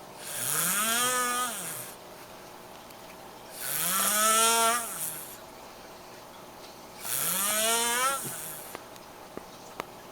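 Snoring: three long snores about three and a half seconds apart, each a hissing breath with a wheezy pitched tone that rises and then falls.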